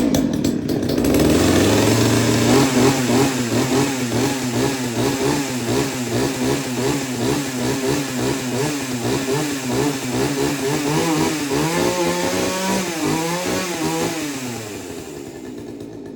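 Two-stroke chainsaw engine catching on full choke and running, its speed surging and hunting unevenly, then slowing and dying near the end. Its carburettor is set for warm weather and needs adjusting.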